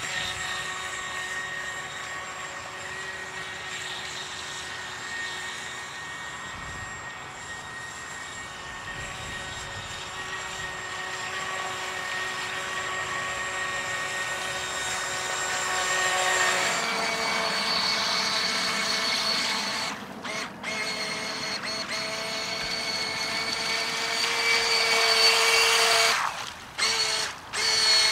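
Toy-grade RC speedboat's electric motor whining at speed on a LiPo battery, over the hiss of the hull and spray through the water. The whine shifts to a higher, stronger pitch about 16 seconds in, then drops out briefly a few times near the end.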